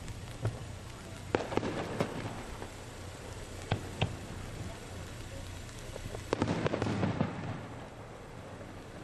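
Aerial fireworks shells bursting overhead. A single bang comes about half a second in, then a quick cluster of bangs and pops about a second and a half in, two sharp single bangs around four seconds, and a longer rapid string of pops near seven seconds.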